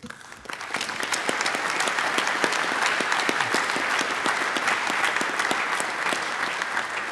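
Audience applauding: many people clapping together after an acceptance speech. The clapping builds up over the first second, holds steady, and starts to fade near the end.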